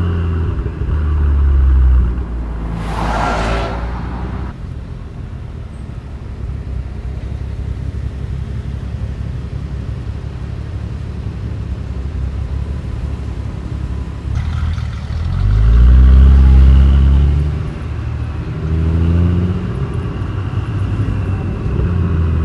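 BMW N55 turbocharged inline-six with a custom exhaust and Stage 1 tune, driving: a steady low exhaust drone, with a brief hiss about three seconds in. It pulls hard with a rising note about two-thirds of the way through, loudest there, and pulls again twice near the end.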